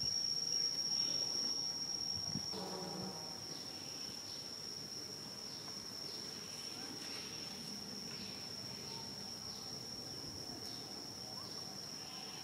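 Insects buzzing in one steady, high-pitched tone that holds throughout, with a short lower pitched call about two and a half seconds in.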